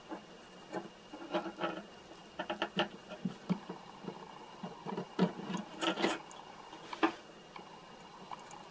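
Small irregular clicks, taps and rustles of hands handling a silicone rubber mold and fine magnet wire, pressing the wire leads into the silicone, in scattered clusters with the sharpest clicks around five to seven seconds in.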